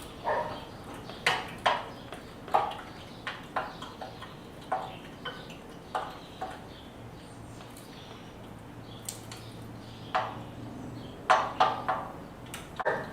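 Irregular metallic clinks and clanks of steel tools and workpiece being handled at the forge, some ringing briefly, in uneven clusters, with a low steady hum starting about seven seconds in.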